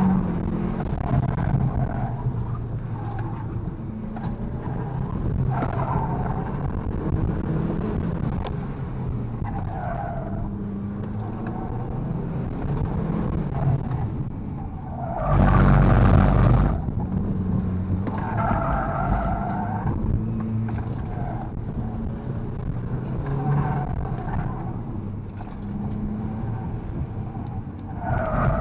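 In-cabin sound of a VW MK7 GTI's APR Stage 1-tuned turbocharged 2.0-litre four-cylinder working hard through an autocross course, its Falken Azenis RT615K+ tyres squealing in short bursts every few seconds through the turns. About halfway through, a loud rush of noise lasting over a second covers everything.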